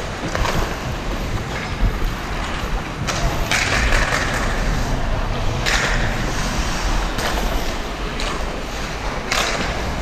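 Ice hockey skate blades gliding and scraping on the ice, with several sharper, hissing scrapes: about three seconds in, again near six seconds, and near the end.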